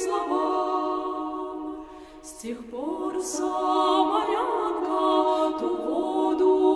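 Women's choir singing a sacred song unaccompanied, in sustained held notes. One phrase fades out just before two seconds in and the next begins about half a second later.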